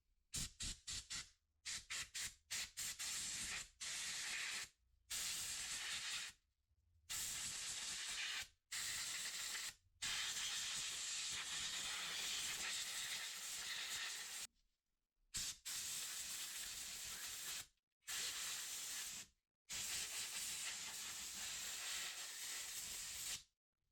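Repeated hissing jets of spray: a run of short bursts, then longer blasts of two to four seconds each, blowing a pressure-washer fuel part clean.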